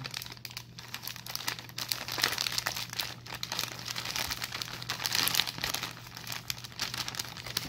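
Plastic pouch of dry cookie dough mix crinkling and rustling, with irregular crackles, as it is squeezed and shaken to pour the powder into a mixing bowl.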